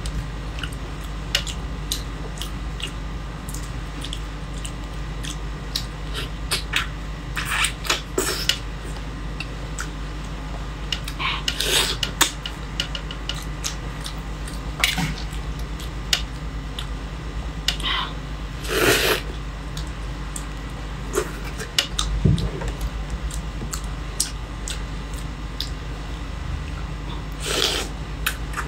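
Eating sounds of raw shrimp being bitten, sucked and chewed: scattered short smacking clicks and a few longer sucking noises, over a steady low hum.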